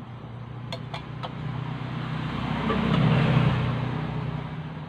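A motor vehicle passing by: a low rumble that swells to its loudest about three seconds in and then fades. A few light clinks of a spatula against a wok come near the start.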